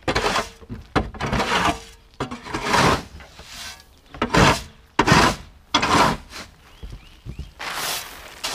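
Granular fertilizer poured into a plastic spreader hopper, heard as a run of about seven short hissing bursts of falling granules with brief pauses between them.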